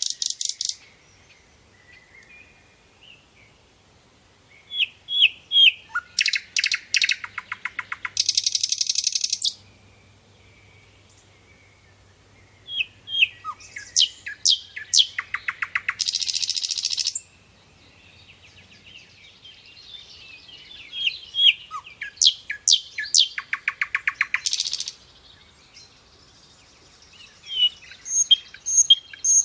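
Nightingale singing in separate phrases a few seconds apart. Each phrase runs from high whistled notes into a rapid trill of repeated notes and a buzzy rattle.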